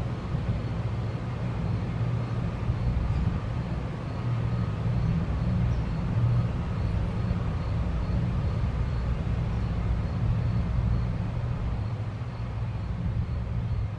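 Steady low rumble of a running engine, holding an even pitch with no clear rise or fall.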